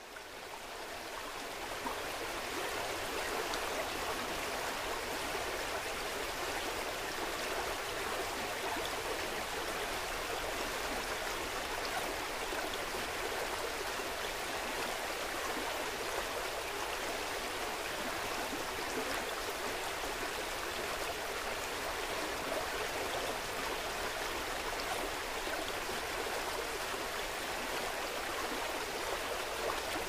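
River water rushing steadily, fading in over the first two seconds.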